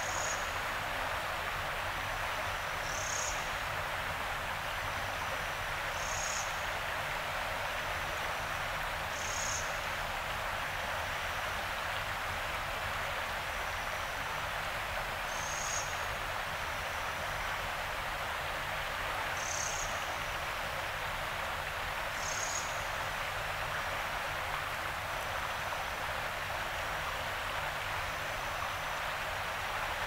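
Yarra River water rushing in a steady, even wash. A short, high chirp repeats about every three seconds, with fainter short high notes in between.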